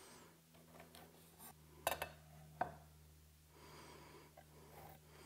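Quiet workshop with a faint steady hum and a few light clicks about two seconds in, from a metal combination square being shifted on a wooden leg during pencil marking.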